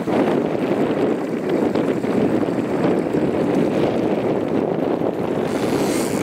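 Steady wind rumble on the microphone, mixed with the wash of choppy water and the hum of a boat moving slowly while trolling.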